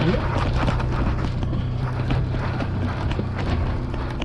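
Fishing boat's engine running steadily with a low hum, with wind on the microphone and scattered small clicks.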